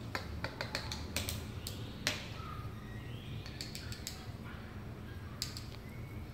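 Irregular sharp clicks and taps in quick clusters, the loudest about two seconds in: a small hand-held toy knocking on ceramic floor tiles.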